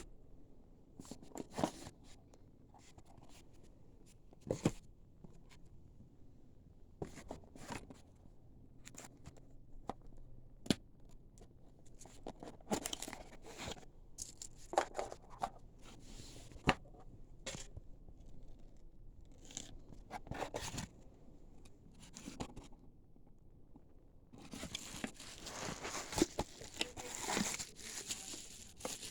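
Packaging being opened and handled: scattered clicks, taps and short rustles, then a few seconds of continuous rustling and crinkling near the end.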